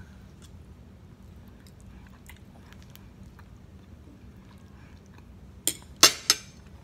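Close-up chewing of a mouthful of macaroni and cheese, with faint wet mouth clicks. Near the end a metal fork clinks sharply three times against the plate.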